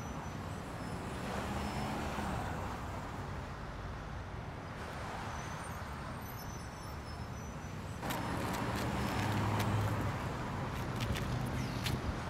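Night street traffic: cars passing on a wet road, tyre hiss over a low engine hum. The sound changes abruptly about eight seconds in, and a few light clicks come near the end.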